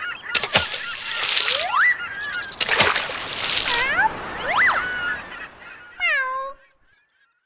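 Playful whistle-like sound effects: pitched glides sweeping up and down, mixed with two hissing swooshes, ending in a quick falling run that cuts off about six and a half seconds in.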